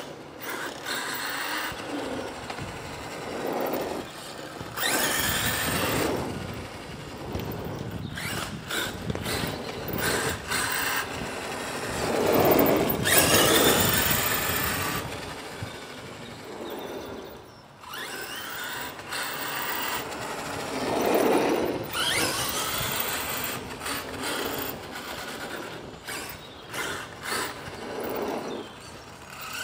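HPI Savage Flux RC monster truck's brushless electric motor whining as the truck is driven hard, passing several times, its pitch rising and falling with each burst of throttle.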